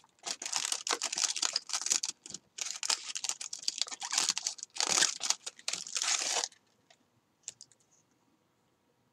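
Cardboard perfume box and its insert rustling, crinkling and scraping as hands work the flaps open and pull the bottle out, in quick crackly handling noises. It stops about two-thirds of the way through, leaving a couple of faint taps.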